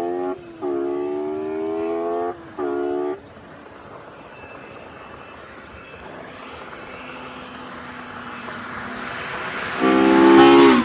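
Honda S2000's F20 2-litre four-cylinder VTEC engine revving high, three times in quick succession with the pitch climbing each time and cutting off sharply. It fades, then comes back growing steadily louder until a loud high-revving pass near the end.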